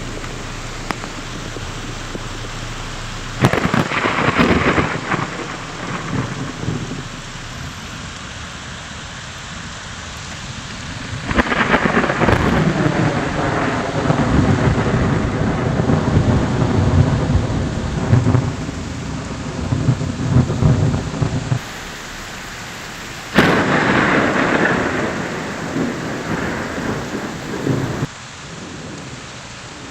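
Heavy rain falling steadily, with three loud rolls of thunder that break in suddenly: about three seconds in, around eleven seconds in (the longest), and about twenty-three seconds in.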